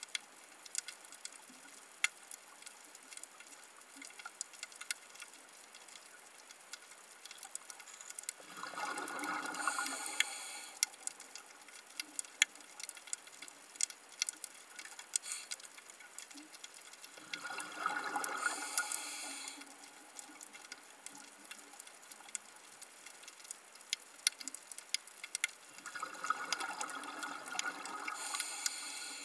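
Underwater sound of a scuba diver's regulator exhaust: a rush of bubbles about every eight to nine seconds, three times in all. Under it runs a steady crackle of sharp clicks from snapping shrimp on the reef.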